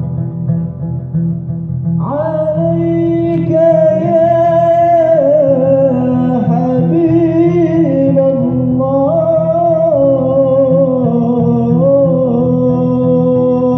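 Live music: acoustic guitar accompaniment playing steadily, joined about two seconds in by a voice singing a slow, drawn-out melody with long held notes that bend between pitches.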